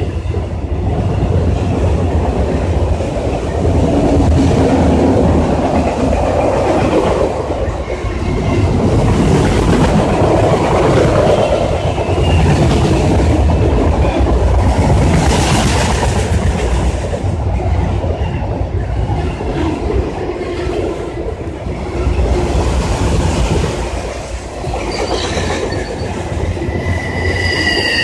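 Freight train of autorack cars passing close by: a loud, steady rumble of steel wheels running on the rails. Near the end, a high-pitched squeal with several steady tones rises over the rumble.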